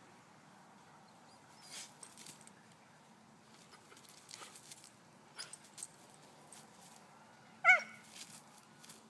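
Kai Ken dog giving one short, high whining yip about three-quarters of the way through, excited by a cat up in the tree, amid faint rustling and small clicks.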